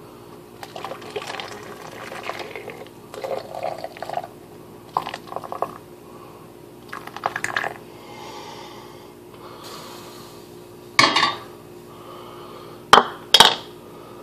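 Boiling water poured from a pot through a plastic funnel into a small plastic water bottle, running in uneven spurts for several seconds. Then a loud clatter, and two sharp clicks near the end.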